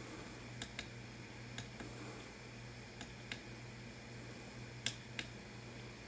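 Tactile push-buttons on an Anet A8 3D printer's LCD control panel clicking, about eight short sharp clicks, mostly in quick pairs, as its menu is stepped through. A steady low hum runs underneath.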